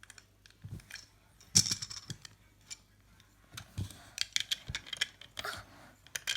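Small objects being handled: scattered light clicks and rustles, irregular, with one sharper click about a second and a half in.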